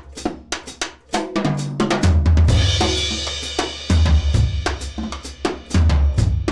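Acoustic drum kit played: quick snare and tom strokes over deep bass-drum hits that land about every two seconds, with a cymbal crash ringing out around two and a half seconds in.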